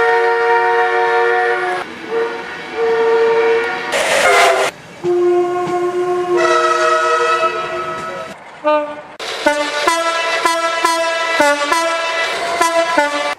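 British train air horns sounding a series of blasts. First come long notes, high and low tones sometimes together and sometimes in turn. From about nine seconds in there is a quick run of short toots.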